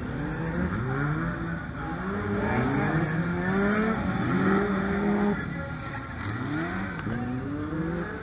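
Several stock car engines revving as the cars accelerate round the track. Their pitch rises again and again in overlapping sweeps, loudest a little past halfway before dropping back.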